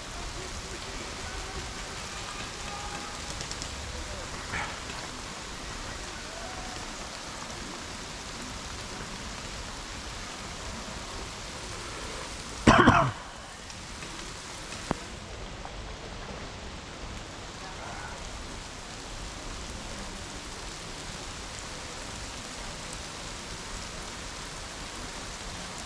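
Steady rain falling, an even hiss throughout, with faint distant voices. About thirteen seconds in, there is one short loud sound.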